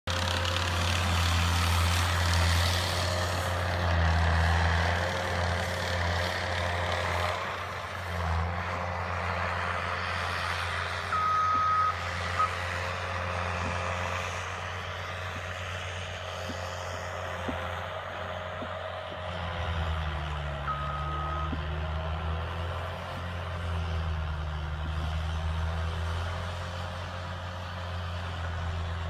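A large vehicle's engine running with a low hum that swells and fades, louder over the first several seconds. A short, high, steady beep sounds about eleven seconds in and again about twenty-one seconds in.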